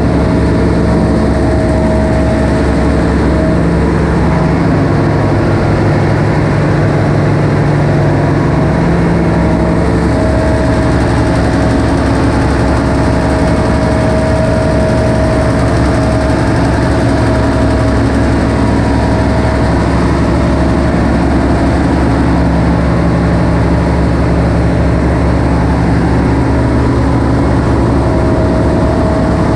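Diesel engines and machinery running in a cargo ship's engine room: a loud, steady drone with several constant humming tones over it.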